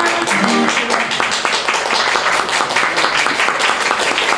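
The last held note of a song on voice and acoustic guitar ends within the first second, then a crowd applauds steadily.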